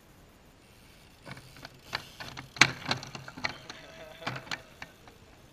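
A BMX bike riding over a wooden plank seesaw ramp: a run of sharp knocks and clatter as the tyres hit the plank and it tips, with one loudest knock a little under halfway through.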